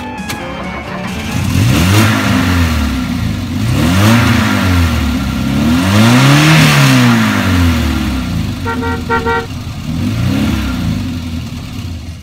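An old Volkswagen Passat's engine being revved up and down in about four long swells. Two short horn beeps come about nine seconds in.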